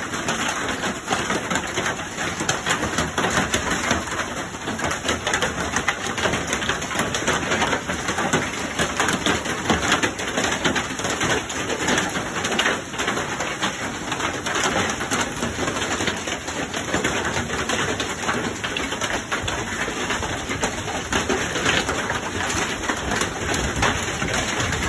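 Heavy rain and hail pelting down in a dense, steady patter of many small impacts.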